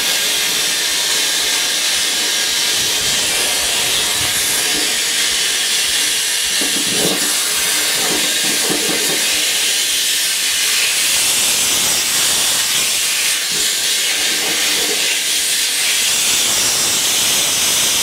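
Compressed air hissing steadily out of a CobraView forward skipper ball on a duct-cleaning camera line, blasting debris down the vent run into the main trunk duct.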